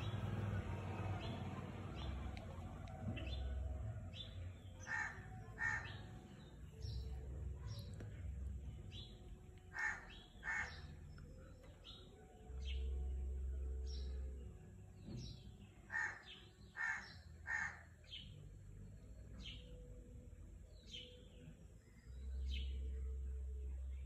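A crow cawing: short harsh caws in pairs a few seconds apart, then three in quick succession, with small birds chirping faintly between them. A low rumble swells about halfway through and again near the end.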